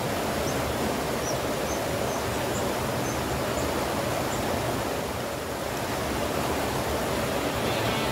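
Fast, muddy river rushing over rocks and rapids: a steady, even noise of water, with faint high chirps about twice a second during the first half.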